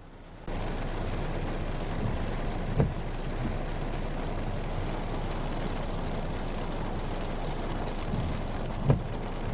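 Steady rain noise heard from inside a car during a downpour. A brief low thump comes about three seconds in, and another near the end.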